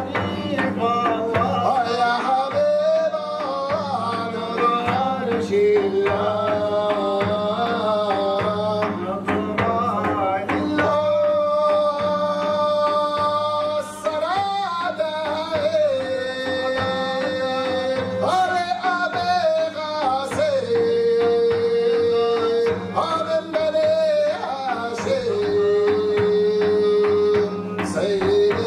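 A man's voice sings a nasheed in Moroccan style, holding long notes with ornamented turns, accompanied by a hand-played frame drum beating a steady rhythm.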